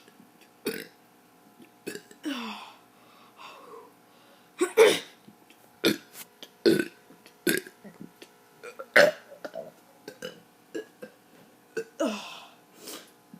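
A child burping over and over: many short burps in a row, some sliding down in pitch, the loudest about five and nine seconds in.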